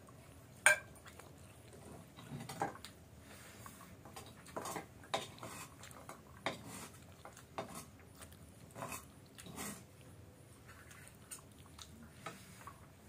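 Eating rice and dal by hand from a steel plate: fingers working the rice against the plate, with chewing and irregular small clinks and taps of the steel dishes, the sharpest about half a second in.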